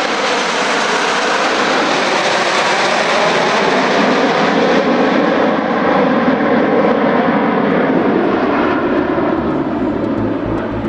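Formation of TS-11 Iskra jet trainers, each with a single turbojet, passing overhead with a loud, steady rush of jet noise. The sound slowly shifts in tone as they pass, then grows duller and eases off near the end.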